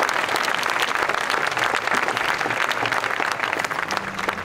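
Audience applauding, many hands clapping, growing slightly thinner towards the end. A low steady tone comes in just before the end.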